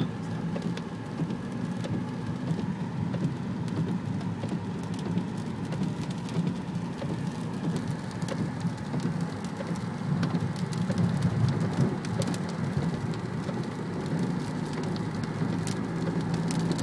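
Rain pattering on a car, with many small drop ticks over a steady noise, and the car's engine humming low underneath.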